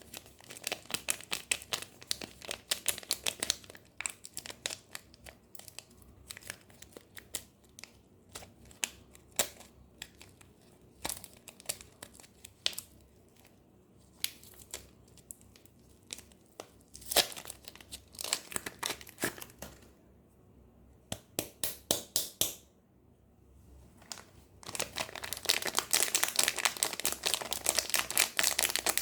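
Crinkling and tearing of a soap bar's wrapper as it is unwrapped by hand: irregular bunches of sharp crackles, with a dense, continuous crinkle over the last few seconds.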